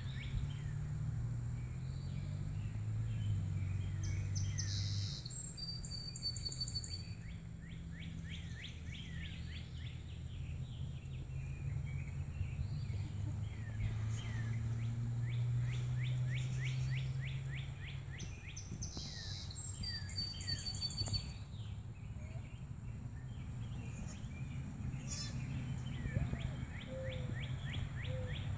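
Birds calling, with repeated rapid series of short chirps and a few clear high whistled notes, over a steady low hum.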